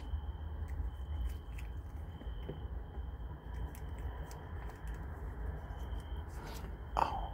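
Kitten licking and eating a squeeze-tube lickable cat treat, with scattered small wet clicks of tongue and mouth. A brief louder sound comes near the end.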